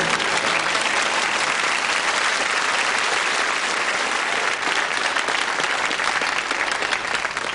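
Studio audience applauding steadily as a song-and-dance number finishes.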